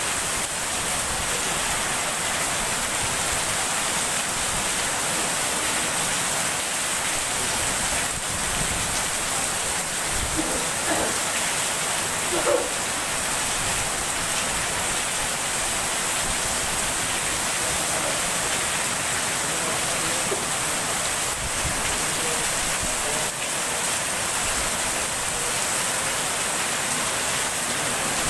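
Heavy rain pouring steadily, an even dense hiss of water.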